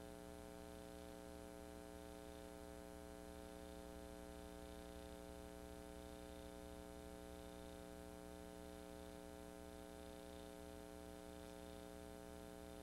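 Near silence: a steady electrical hum with faint hiss, unchanging throughout.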